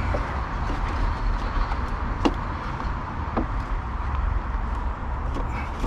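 A few light clicks and knocks of a door lock assembly being worked into a Volkswagen Golf Mk5 rear door, the sharpest about two seconds in, over a steady low rumble.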